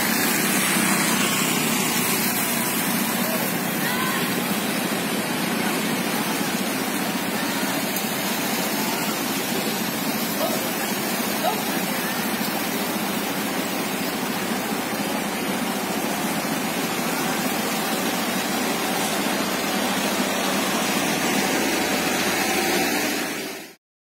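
Steady din of vehicle engines and traffic on a waterlogged road, with a constant rushing noise; it cuts off suddenly near the end.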